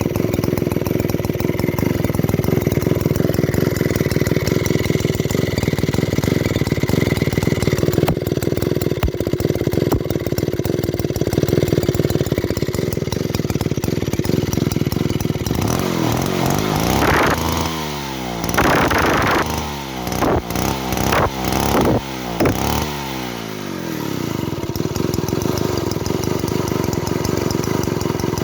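Druzhba 4E two-stroke chainsaw engine idling steadily, then revved in a series of quick throttle blips, each rising and falling in pitch, for several seconds past the halfway point before it settles back to idle.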